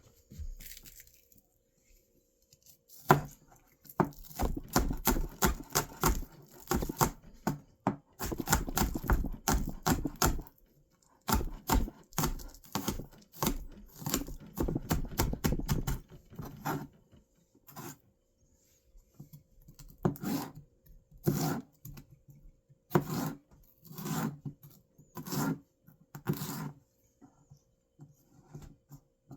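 Food-preparation handling noises: an irregular run of knocks, scrapes and rustles, then a series of separate short scrapes near the end.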